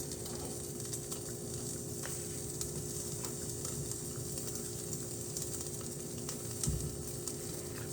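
Mushrooms and sausage sizzling steadily in a frying pan on the stove, with scattered small crackles. A faint steady hum runs underneath.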